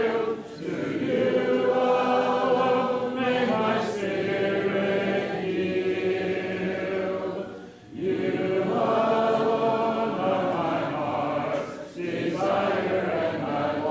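A church congregation singing a hymn a cappella, in long held phrases with short pauses between lines.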